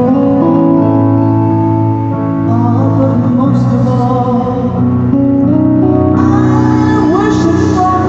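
Live performance of a ballad: a woman singing over electric guitar accompaniment.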